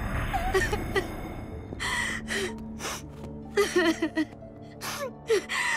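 A string of short gasps and strained, breathy cries from a voice, over a dark, held music score.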